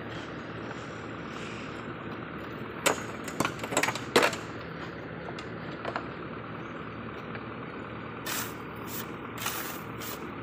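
Small metal hand shovel scraping and knocking in sand as a truck-bed sand load is levelled: a run of sharp scrapes and knocks a few seconds in, one more about halfway, and a further series near the end, over a steady low hum.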